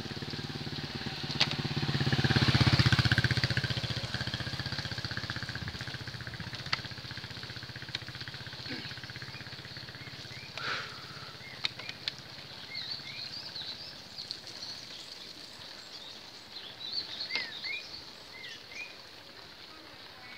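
An engine hum that is loudest a few seconds in and fades away by the middle, followed by birds chirping in short, quick calls, with a few scattered clicks and knocks.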